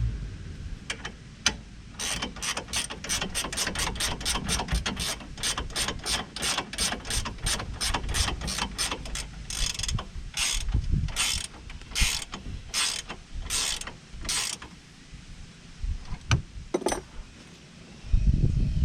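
Hand ratchet wrench clicking, first in quick short swings at about four clicks a second, then in slower, longer rasping strokes that stop a little past two-thirds of the way through. A few scattered knocks follow.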